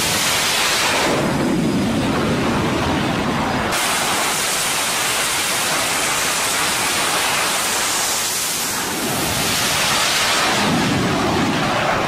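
Twin-engine F/A-18 fighter jets at full power on a carrier flight deck during catapult launches: a loud, continuous rushing jet noise that swells and shifts as the aircraft run up and launch.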